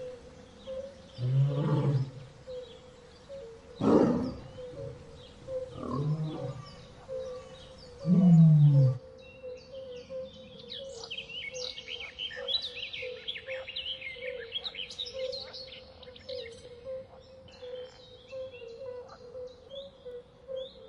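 A big cat roaring in four low calls about two seconds apart, the last the loudest. About nine seconds in, birds chirping take over, with a faint steady hum underneath throughout.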